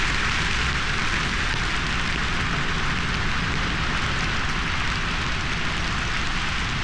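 Dry grass burning in a large hillside fire, a steady dense crackle and hiss of flames.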